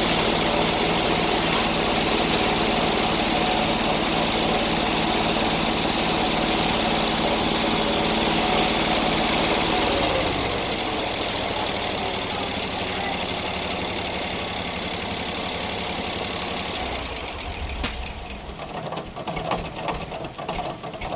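Sawmill engine running steadily, then dropping in level and pitch about halfway through. Near the end it turns uneven, with scattered knocks and rattles.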